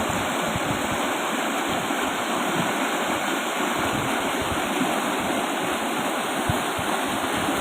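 A fast-flowing river rushing steadily, its water noise even and unbroken.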